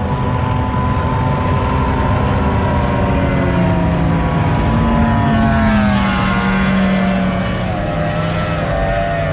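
Hot rod boat's engine at wide-open throttle on a high-speed pass, loudest about halfway through, then dropping in pitch as the boat goes by.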